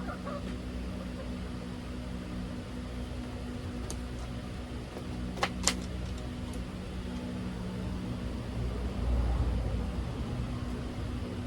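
A steady low engine-like hum with two sharp clicks about halfway through, and a low rumble that swells near the end.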